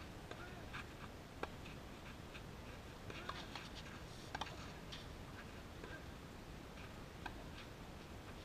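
Faint outdoor court ambience: a steady low hiss with a few scattered light taps, about four in all, including a quick double tap near the middle.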